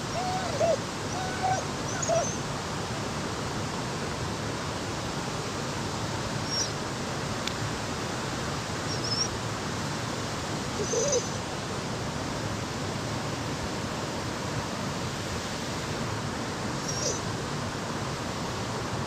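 Steady rush of flowing river water, with a few short whistling calls in the first couple of seconds and scattered brief high chirps later.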